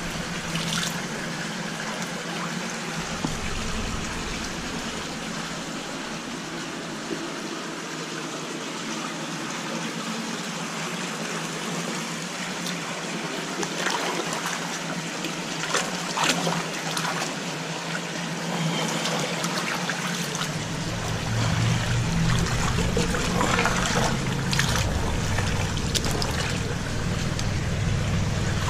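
Shallow creek water trickling steadily, with a few sharp knocks of stones being moved. About twenty seconds in, a low rumble joins and stays.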